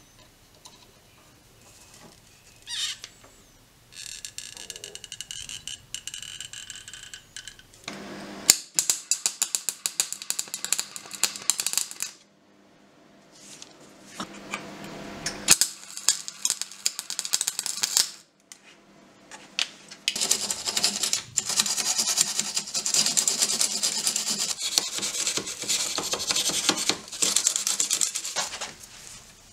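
Short runs of electric arc welding on a small steel lock case, a dense crackle full of sharp clicks, broken by pauses. Later a long stretch of a steel file rasping back and forth over the lock's steel parts.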